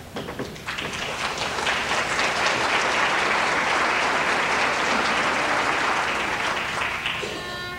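Theatre audience applauding at the end of a sung ballad: the clapping swells about a second in, holds, and dies away near the end as a fiddle starts to play.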